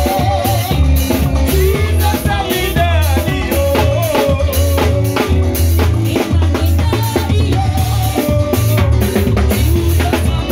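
Live band music with a drum kit keeping a steady beat over a heavy bass, and a keyboard melody on top.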